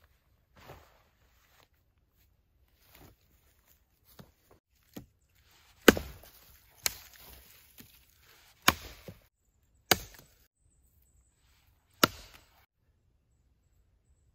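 Skrama 240 carbon-steel bush knife chopping a branch against a fallen log: sharp chops, the loudest five spaced about one to two seconds apart from about six seconds in, with lighter taps between. Before the chops there is soft rustling.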